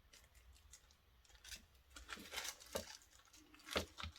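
Faint handling noise of small cured resin phone-grip pieces and their silicone molds: irregular light clicks, taps and crinkly rustles, a little louder about halfway through and near the end.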